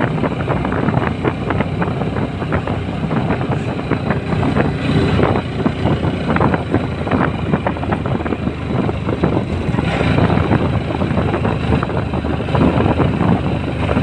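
Motorcycle engine running steadily under way, heard from the rider's seat, mixed with rushing wind buffeting the microphone.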